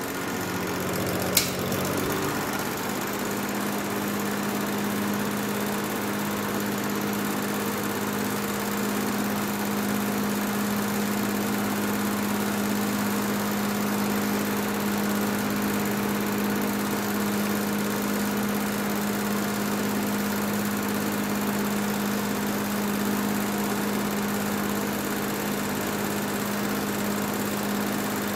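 1960s Cory Fresh'nd Aire 20-inch box fan running with a steady electric-motor hum. A single sharp click comes about a second and a half in, and right after it the hum changes and settles into one steady tone.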